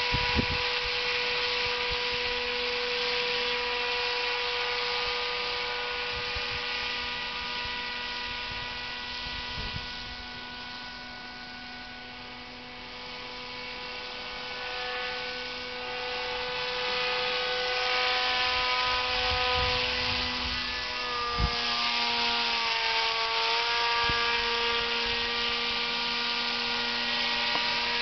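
Paramotor's motor and propeller running in flight overhead: a steady whine that grows fainter around the middle and louder again, its pitch dipping briefly about three-quarters of the way through.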